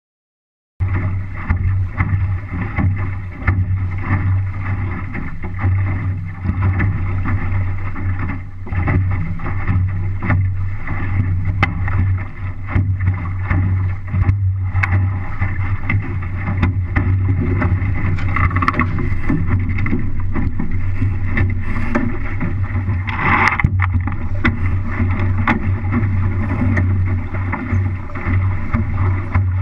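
Wind buffeting the microphone and water rushing and slapping along the hull of an MC-Scow sailboat under sail, a steady loud low rumble that starts suddenly about a second in, with a brief louder splash about two-thirds of the way through.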